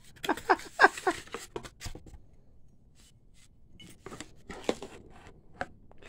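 Handling noises from items and packaging being moved about: a quick run of clicks and rustles in the first two seconds, then a few scattered taps and knocks.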